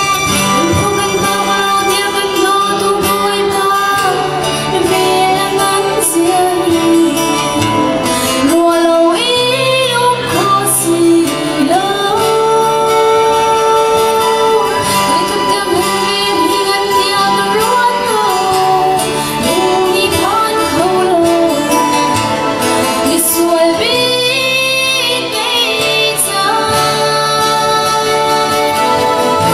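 A woman singing a gospel solo into a handheld microphone over instrumental backing music.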